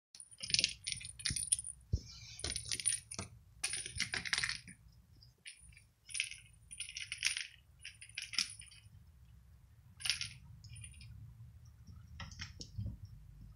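A small cat toy ball jingling and clattering on a hard stone floor as Cornish Rex cats bat and chase it, in irregular bursts of clicks with a high ringing jingle that come thick in the first nine seconds and thin out after.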